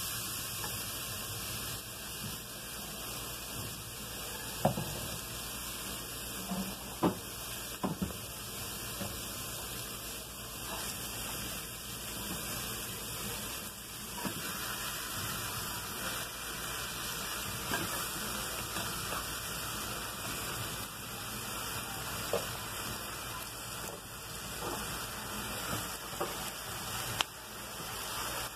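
Seasoning sizzling with a steady hiss in a metal pot as it is stirred with a wooden spoon, with a few short knocks of the spoon and of pieces of boiled cow's foot going into the pot.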